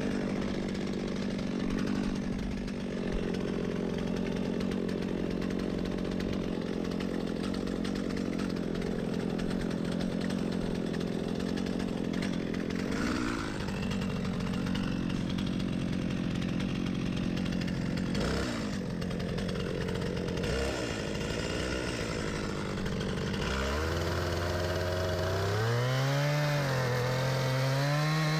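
Chainsaw running steadily under load, cutting wood. In the last few seconds a lower, pitched sound comes in and wavers up and down in pitch.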